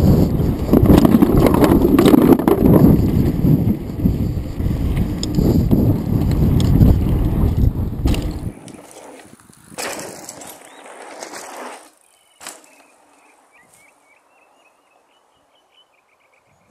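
Mountain e-bike riding fast down a dirt trail: heavy wind buffeting on the rider's camera mixed with knobby tyres rumbling and the bike rattling over the rough ground for about eight seconds. It then drops to a much quieter roll with a couple of sharp knocks, and a faint run of chirps near the end.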